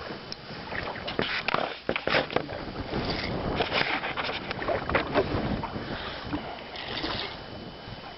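Water splashing and sloshing around a small fishing boat, with irregular knocks and splashes scattered throughout.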